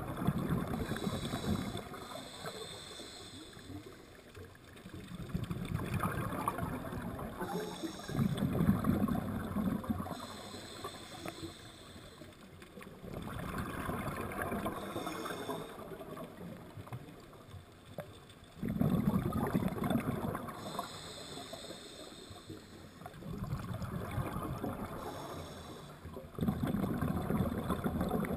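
Scuba diver breathing through a regulator underwater: each exhale is a loud burst of bubbling rumble, and quieter hissing inhales fall between them, in slow cycles of about five to six seconds.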